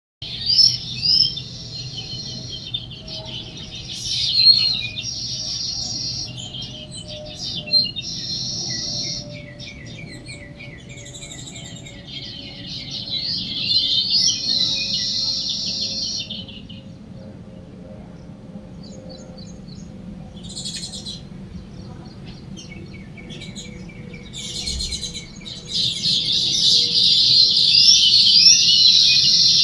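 Several birds chirping and singing together in bursts of dense, high twittering, with a fast repeated trill between the bursts. A faint steady low hum lies underneath.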